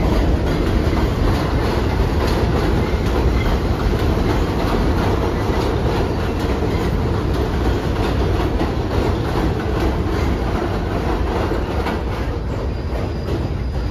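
New York City subway train of R46 cars running past on the elevated track: a steady rumble of steel wheels on rail with rapid clicking over the rail joints, easing off slightly near the end as the last car moves away.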